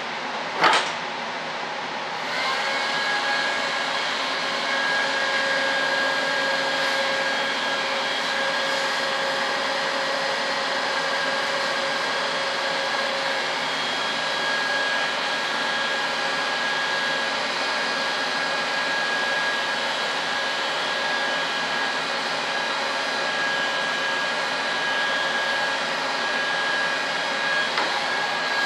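Electric heat gun running steadily, a rush of blown air with a steady high whine, switched on about two seconds in. A sharp knock comes just before it starts.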